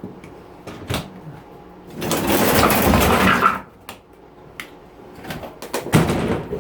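Knocks and clatter of dishwasher parts being handled during teardown, with a loud scraping, rattling noise lasting about a second and a half.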